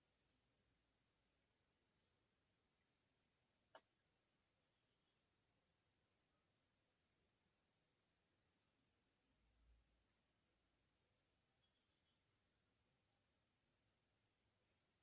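Steady, high-pitched insect chorus trilling without a break, with a single faint click about four seconds in.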